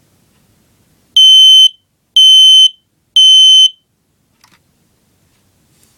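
Smoke alarm sounding its test: three loud, steady high-pitched beeps about a second apart, the standard temporal-three evacuation pattern.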